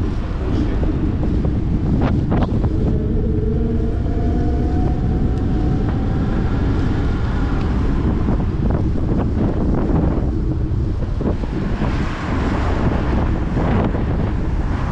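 Heavy wind noise buffeting a bicycle-mounted action camera's microphone while riding, with car traffic passing alongside. There are two sharp knocks about two seconds in, and the traffic noise swells near the end.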